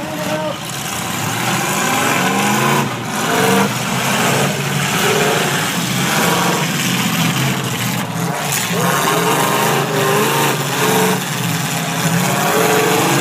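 Several demolition-derby cars' engines running and revving together, their pitches rising and falling as the cars accelerate and back off.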